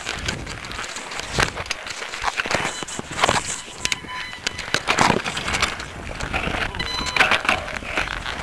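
Mountain bike clattering and rattling over a rough dirt-and-gravel trail, with irregular knocks from the bike and tyres crunching through dirt and brush.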